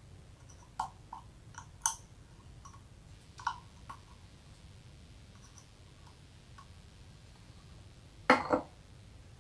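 Small scattered clicks and taps of a screwdriver working against the plastic housing of a dismantled LED bulb during the first four seconds. A louder double knock comes about eight seconds in as the housing is set down on a stand.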